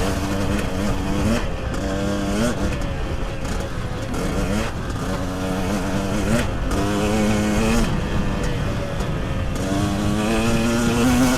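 KTM 300 EXC two-stroke enduro engine on the move, its pitch climbing with throttle and dropping back several times as the rider works through the gears. The engine is new and being run in.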